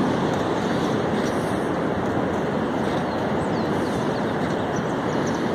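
Steady rush of ocean surf breaking on a sandy beach, mixed with wind on the microphone.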